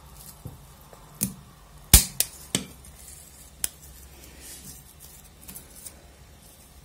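Scissors snipping through thick, woody azalea branches: a few sharp clicks, the loudest about two seconds in, then a couple of faint ones near the end.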